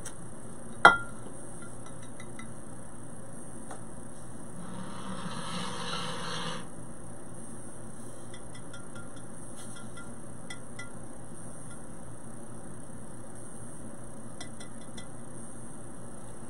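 A sharp click about a second in, then a hiss of about two seconds from an aerosol spray-foam can being sprayed, with a few faint ticks afterwards.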